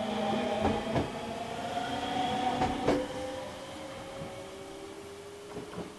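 JR Shikoku electric train running away along the track, its motors whining in several steady tones that drift slightly lower. Wheels clack over rail joints about a second in, near three seconds in and again near the end, and the sound fades as the train moves off.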